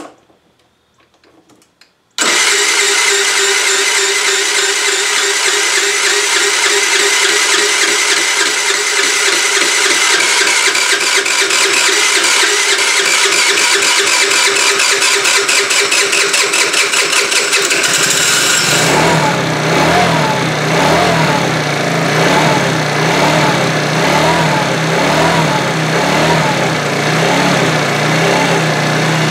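A TaoTao scooter engine starts abruptly about two seconds in and runs fast and steadily. About eighteen seconds in it drops to a lower, wavering idle.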